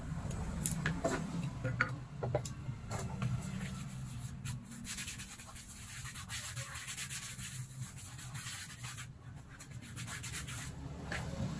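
Hands rubbing and scraping over a foam insole sheet while spreading glue on it: irregular scratchy rubbing strokes, over a steady low rumble.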